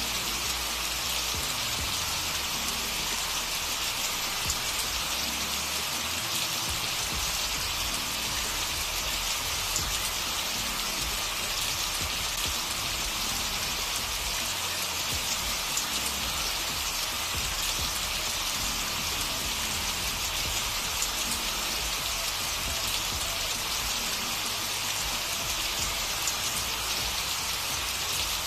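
Steady recorded rain: an even, unbroken hiss of rainfall with no change, the kind of masking bed that subliminal audio is laid under.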